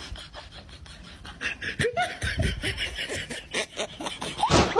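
A person laughing in short, choppy bursts, starting about a second and a half in and loudest near the end.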